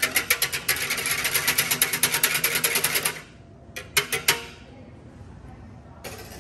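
Wire whisk stirring vanilla bean paste into simple syrup in a large measuring pitcher: quick, even clicking of the wires against the pitcher's sides that stops abruptly about three seconds in, followed a second later by a few sharp taps.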